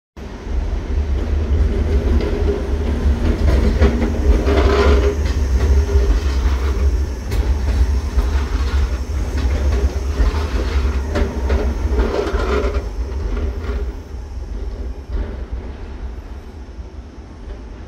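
BLT Tina tram passing close by, its wheels rumbling on the rails with clicks and clatter over rail joints and track crossings. The rumble fades as the tram moves away near the end.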